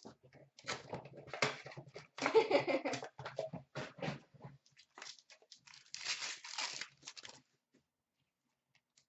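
Hockey card box and packs being handled, with crinkling and rustling. Around six seconds in, a pack wrapper is torn open with a tearing rustle lasting about a second.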